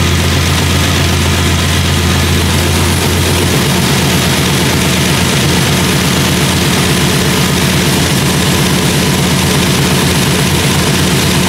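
Freshly rebuilt GM LT-series V8 truck engine, fitted with an aftermarket camshaft and with its AFM/DOD cylinder deactivation deleted, running steadily on its first start-up. Its note steps up to a higher engine speed about three and a half seconds in.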